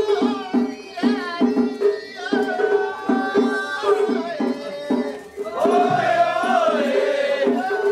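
Japanese festival music: drums beaten in a quick steady rhythm of about four strokes a second, alternating between two pitches, under a high wavering melody with a long held note about six seconds in.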